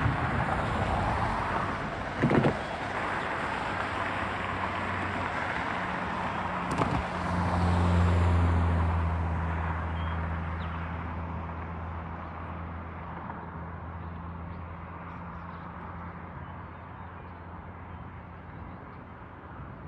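Intermodal freight train rolling past, its wheels on the rails making a steady rumble with a knock about two seconds in. About seven seconds in, a locomotive's diesel engine drone rises, peaks, then slowly fades as it moves on.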